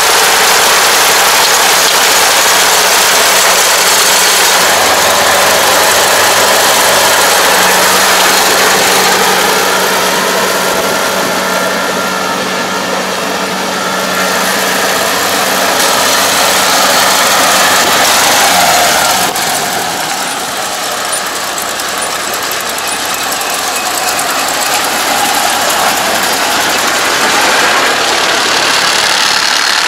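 ANR460 rice combine harvester's engine running steadily while working through flattened, lodged rice. About two-thirds of the way in its engine note drops and dies away, a stall from straw clogging the machine. A steady hiss carries on afterwards.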